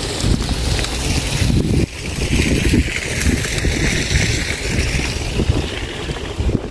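Wind buffeting the microphone while riding a bicycle: a loud, gusty low rumble, with a hiss rising and fading through the middle.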